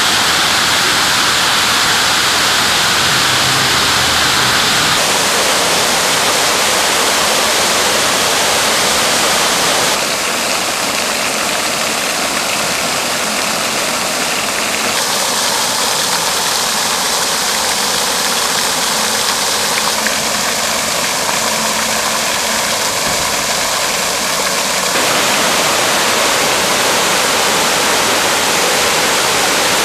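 Fountain water splashing and rushing in a steady hiss: water bells pouring from nozzles, jets falling into a pool, and a sheet of water falling onto a surface. The sound changes abruptly about every five seconds as one fountain gives way to another.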